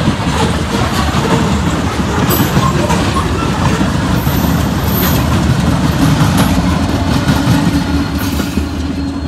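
CSX freight train cars rolling past at close range: a steady, loud rumble of steel wheels on the rails with clatter over the joints, easing a little near the end.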